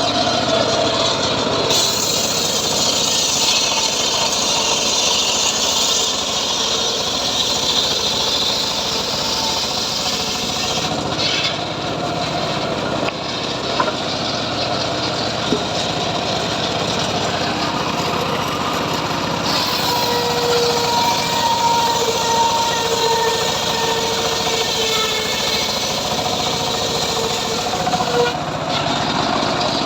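Small-engine-driven saw running steadily while cutting teak wood; the hiss of the cut changes every several seconds as the load shifts.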